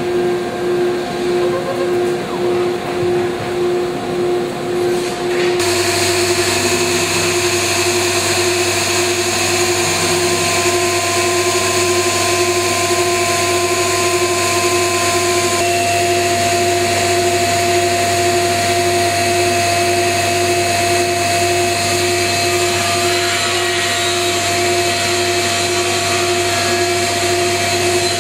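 AXYZ 7012 CNC router running with its spindle working a sheet on the table: a steady machine whine with a pulsing tone. About five seconds in the sound jumps louder and fuller, with a low drone under steady high whines, and holds there.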